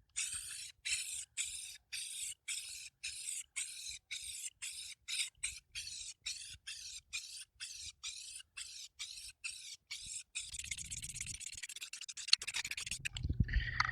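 Aerosol can of gray spray primer hissing in short quick bursts, about three a second, then one longer steady spray lasting a couple of seconds before it stops.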